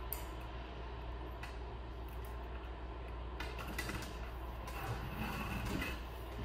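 Armature wire being handled and pulled through an armature frame by gloved hands: scattered light clicks and short scrapes of wire, over a steady low hum.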